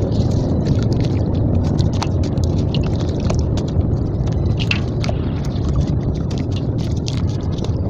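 Soaked red sand-cement chunks crumbled and squeezed by hand in muddy water: gritty wet crunching and squishing with small splashes, dotted with many sharp crackles.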